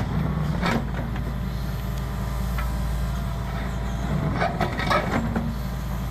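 Hitachi ZAXIS 170W wheeled excavator's diesel engine running steadily under load, with a few scrapes and knocks from the bucket digging into hard, frozen ground, notably near the start and a little before the end.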